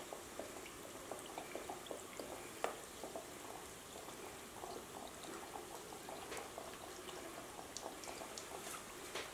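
Chicken wings deep-frying in hot oil in a stainless steel pot: a faint, steady bubbling dotted with small crackles and pops.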